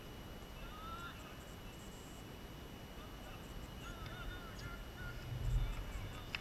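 Low wind rumble on an outdoor microphone, swelling in a gust about five and a half seconds in, with faint distant short calls about a second in and again about four seconds in. A sharp click just before the end.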